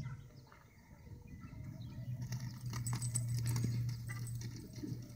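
Horses moving about on a dirt arena: scattered light hoof steps and small clinks, with a low steady hum coming in about two seconds in.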